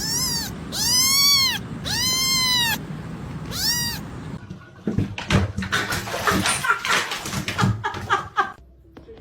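A cat meowing four times, each meow rising then falling in pitch, the middle two the longest. Then a few seconds of short, choppy noises.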